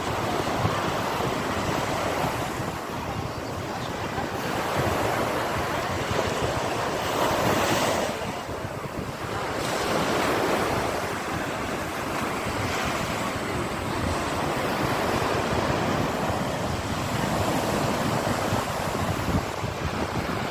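Sea waves washing on the shore in slow swells, the biggest surge about eight seconds in, with wind buffeting the microphone.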